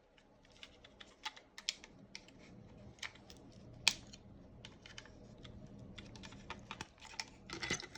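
Light, irregular clicks and taps of hard plastic as the cell pack is worked out of the DeWalt battery's plastic case, with one sharper click about four seconds in and a quick cluster near the end.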